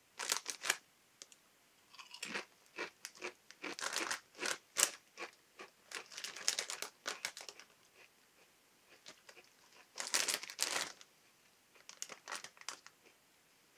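Close-up chewing of ridge-cut potato crisps: clusters of short, sharp crunches with pauses between, mixed with the crisp packet crinkling.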